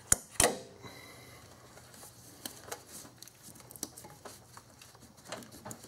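Gloved hands working among rubber coolant hoses and a hose clamp in an engine bay: two sharp clicks right at the start, then scattered faint clicks and rubbing.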